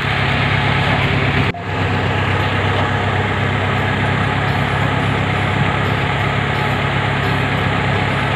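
Off-road 4x4's engine running steadily at low revs, with a brief dropout in the sound about a second and a half in.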